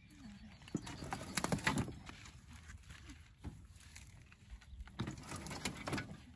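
Rustling and scattered knocks as tangled tall grass is pulled out from under a lawn tractor's mower deck, with the engine switched off. The sounds come in two bouts, about a second in and again about five seconds in.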